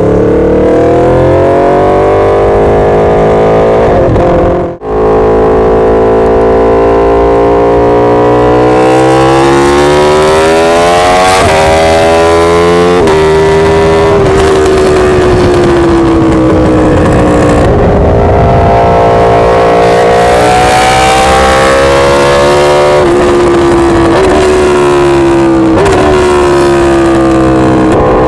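Aprilia RSV4 1100's V4 engine through an SC-Project GP-22 titanium exhaust, pulling hard under load. The pitch climbs through the revs and drops sharply at each gear change, falls away on deceleration, then climbs again. The sound cuts out briefly about five seconds in.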